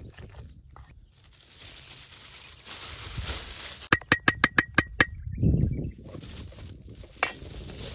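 A metal spoon knocks about seven times in quick succession against a stainless steel mixing bowl, each knock ringing briefly, amid softer stirring of batter. One more single knock comes near the end.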